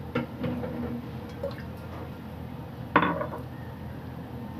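An aluminium pot of sugar and water knocks lightly a few times, then clanks down onto the gas stove's burner grate about three seconds in. Underneath runs the steady sizzle of dough sweets deep-frying in oil.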